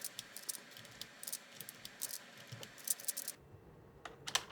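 Small plastic keycaps clicking and rattling as they are handled and pushed onto keyboard switches, in quick irregular ticks that thin out after about three and a half seconds.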